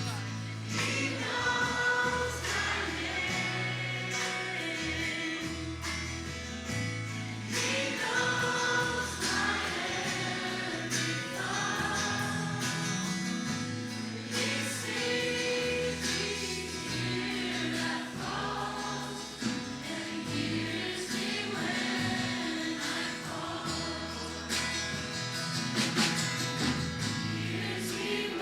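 Music with a choir of voices singing over sustained bass notes, in a gospel or Christian pop style.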